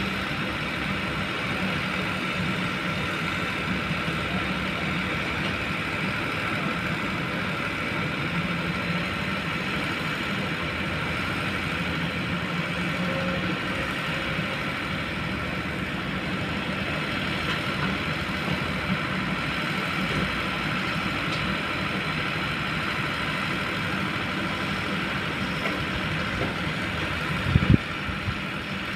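Diesel engine of a Kobelco long-boom hydraulic excavator running steadily, with a short cluster of sharp knocks near the end.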